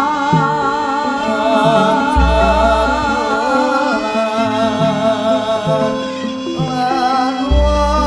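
Javanese gamelan (karawitan) music with a female singer (pesinden) singing a wavering, ornamented line into a microphone. Beneath her are stepped metallophone notes and two deep low strokes, about two seconds in and near the end.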